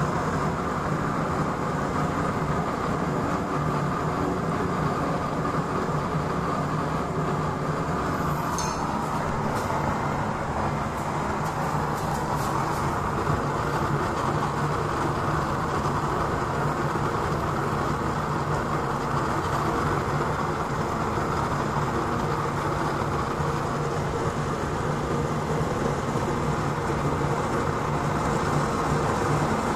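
Homemade waste-oil burner stove running: a steady rushing rumble of the air-fed flame in the burner pot, with a few faint crackles about nine to thirteen seconds in.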